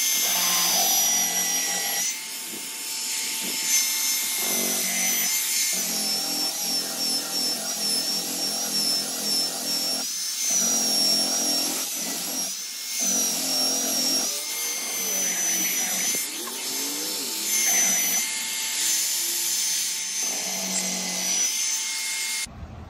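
Electric power sander running on a glued maple-and-mahogany guitar body, sanding the overhanging edges flush. It gives a steady high whine over a rough grinding noise that changes as the sander is pressed and moved, and it switches off sharply near the end.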